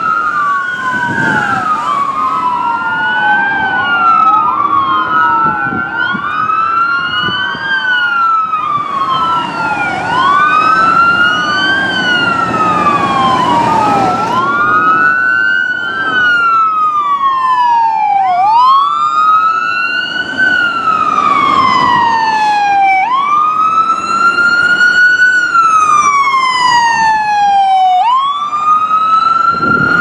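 Electronic wail sirens of fire trucks and an ambulance on an emergency run. In the first half two sirens wail out of step with each other; later a single siren dominates, rising quickly and falling slowly about every two and a half seconds. Engine and traffic rumble runs underneath.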